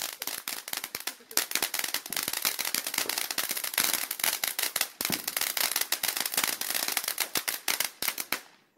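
Ground fountain firework spraying sparks, with a hiss and dense rapid crackling from its crackle effect. It stops abruptly near the end as the fountain burns out.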